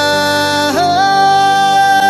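Song with a male singer holding one long note over steady instrumental accompaniment; under a second in the note dips and slides up to a higher pitch, then holds.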